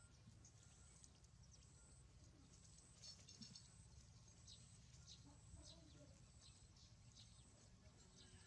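Near silence: a steady low hum with faint, short, high-pitched chirps every half second or so.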